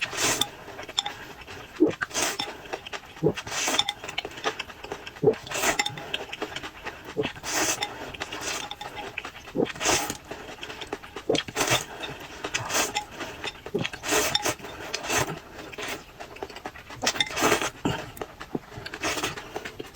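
Close-miked eating sounds: bites and chewing of food with loud, sharp breaths, one every second or two, as of someone panting at hot chili.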